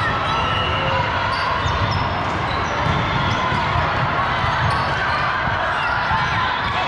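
Volleyball play in a busy gym: balls thudding off hands and the hard court floor, over a steady hubbub of players' and spectators' voices.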